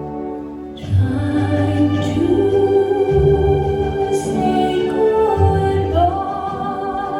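Recorded music playing: slow, sustained organ-like chords over a bass line, growing louder about a second in.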